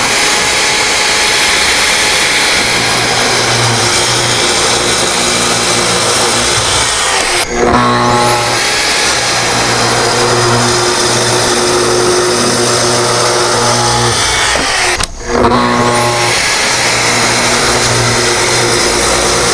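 Festool TS 75 plunge track saw ripping a black walnut slab along its guide rail, its motor running steadily under load. Twice the sound cuts off abruptly, and each time the motor's high whine climbs quickly back up to speed.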